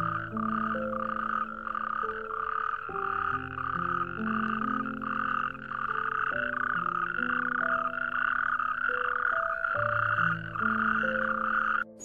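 Toad calling: a long, even run of pulsed croaks, about three a second, over soft background music with slow sustained notes.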